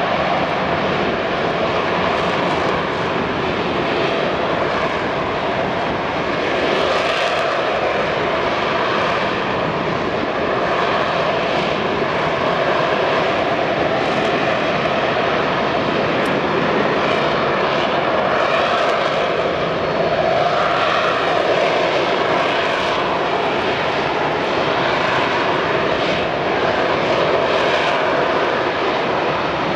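Harrier jump jet's Rolls-Royce Pegasus engine running with a steady, loud jet noise as the aircraft hovers and flies slowly overhead.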